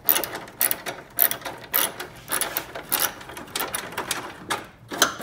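Small socket ratchet clicking in quick, uneven runs as it is worked back and forth to loosen a tight bolt.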